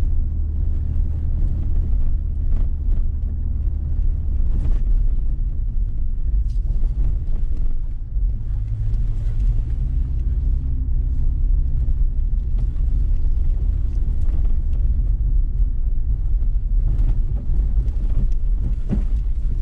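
Steady low rumble of a moving vehicle, its engine tone shifting about eight seconds in, with a few faint knocks.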